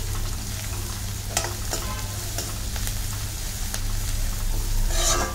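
Chopped vegetables sizzling in oil in an iron kadhai while a steel ladle stirs them, scraping and clinking against the pan several times, more often near the end. A steady low hum runs underneath.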